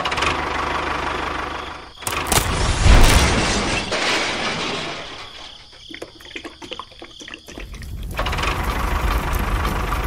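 Tractor engine running steadily, broken about two seconds in by a loud crash, then a spell of quieter rapid clicking before the engine sound picks up again near the end.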